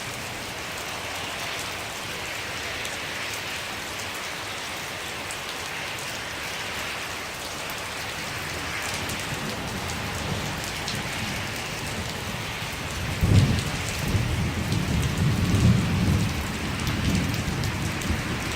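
Heavy rain pouring steadily. About two-thirds of the way through, a long, low thunder rumble breaks in suddenly and keeps rolling in waves.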